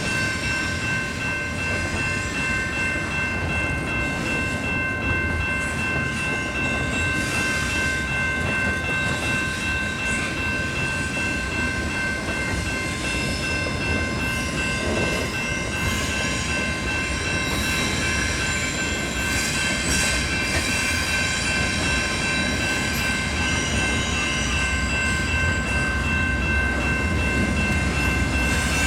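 Intermodal double-stack freight train rolling past: a steady low rumble of the cars with several high, even tones held throughout, growing slightly louder near the end.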